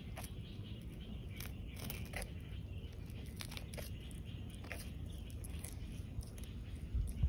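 Red-footed tortoise biting and tearing leaves: a scatter of small crisp snips and crunches over a steady low rumble.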